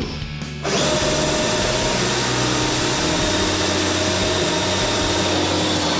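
Wet vacuum motor switched on about a second in, then running loudly and steadily with a whine, sucking standing sewage out of a blocked drain.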